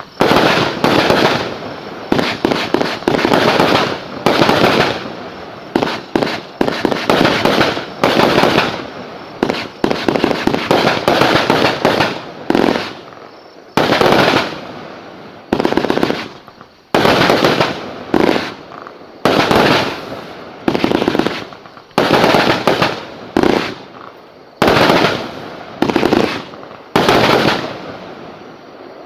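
Lesli Voodoo Queen firework firing a rapid string of loud bangs, about one a second, each blast followed by a fading crackle.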